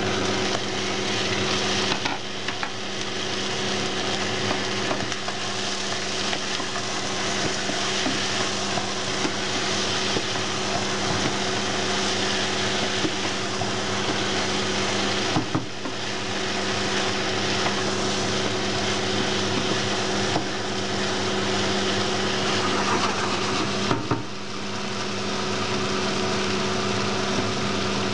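Vegetables and chicken frying in a pot with a steady sizzle, while a wooden spoon stirs them and clicks and scrapes against the pot. A steady low hum runs underneath.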